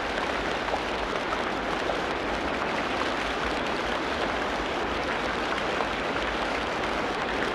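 Steady rain falling in a tropical rainforest: an even, unbroken hiss of many drops with no single sound standing out.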